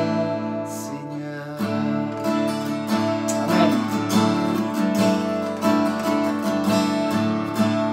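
Fender acoustic guitar strummed, a steady run of chords ringing on with a stroke every fraction of a second.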